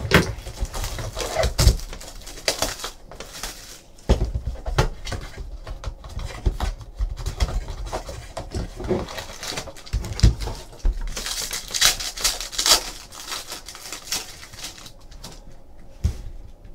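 Hands opening a sealed trading card box: plastic shrink wrap crinkling, the cardboard flap pulled open and packs rustling, with scattered taps and knocks. A denser spell of crinkling and tearing comes about two-thirds of the way through.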